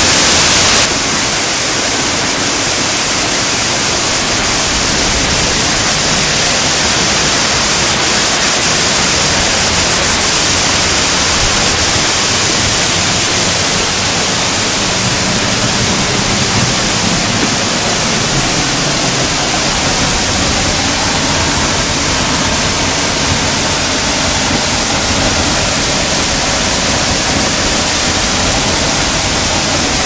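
Waterfall's falling water: a loud, steady rushing hiss, a little quieter from about a second in.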